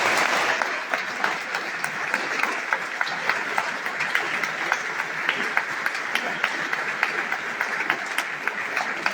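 Audience applauding, loudest at the outset and then settling into steady clapping.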